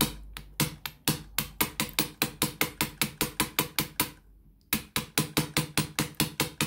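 A 6-pin bump key in a 5-pin Euro cylinder being struck over and over with a bump tool: sharp metal taps about four to five a second, with a short pause about four seconds in. Each tap jolts the pin tumblers to bump the lock open.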